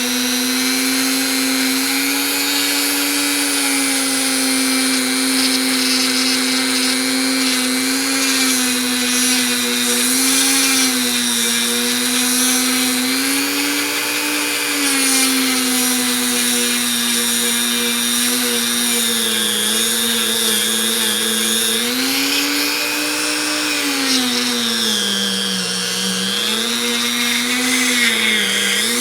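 Dremel rotary tool running steadily against a pair of pliers during cleanup, a high whine whose pitch sags and recovers several times, most deeply about three-quarters of the way through.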